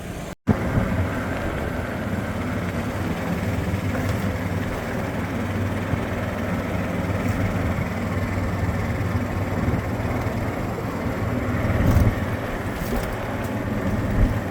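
Steady motor vehicle running noise: a low engine hum under an even rushing road noise, swelling briefly louder about twelve seconds in.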